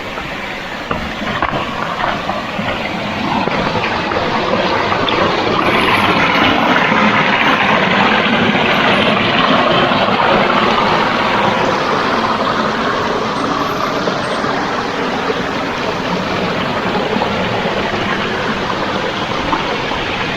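Rushing water of a rainforest creek: a steady, even rush that grows louder a few seconds in and then eases slightly.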